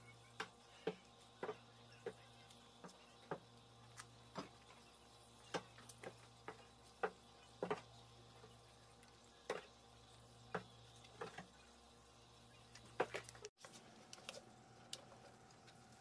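Wooden spoon stirring chili powder into thick, sticky glutinous-rice gochujang in a stainless steel bowl: soft irregular clicks and taps of the spoon against the bowl and the sticky paste, about one or two a second.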